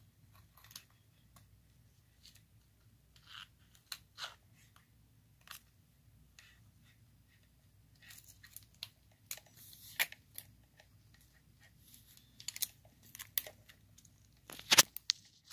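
Multimeter probe tips clicking and scraping against a battery's terminals while being worked for good contact: irregular small clicks and short scrapes, busier in the second half, with one louder knock near the end.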